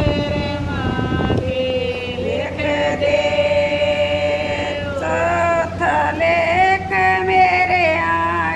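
Women singing a Hindi devotional bhajan, holding long drawn-out notes that slide between pitches.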